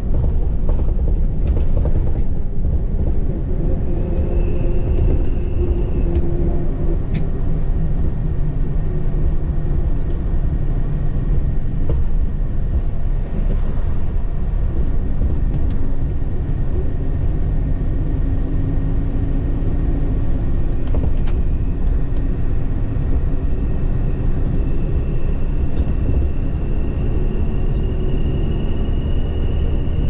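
A bus running along the road, heard from inside the cabin: a loud, steady low rumble of engine and road noise with a few brief knocks. A faint high whine rises slowly in pitch over the last several seconds.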